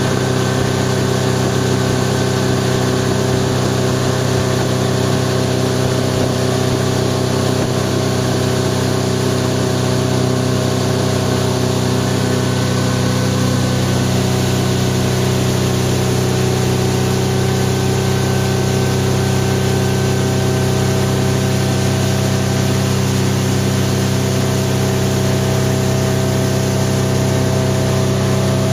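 Speedboat engine running steadily at cruising speed, with the rush of wind and water spray over the hull.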